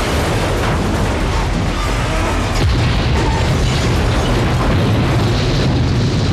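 Film sound effects of a passenger jet crashing and exploding: a continuous loud blast and rumble of explosions, with the deep rumble swelling about two and a half seconds in.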